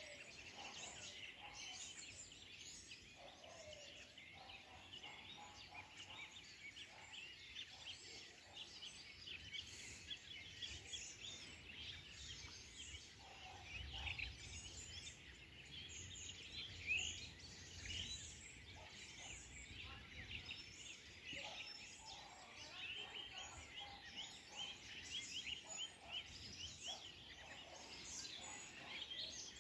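Faint chorus of birds chirping, many short overlapping calls, with a low rumble about halfway through.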